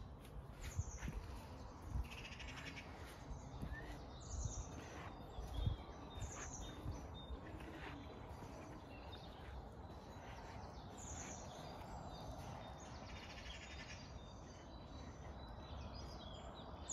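Songbirds of a spring dawn chorus, short bright phrases repeating throughout from several birds.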